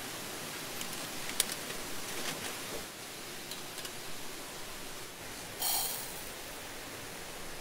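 A few light metal clicks as the panels of a folding sheet-steel camp stove and its wire grill grate are fitted together, over a steady hiss. Near the end, a short, louder rush of dry rice grains poured into a metal pot.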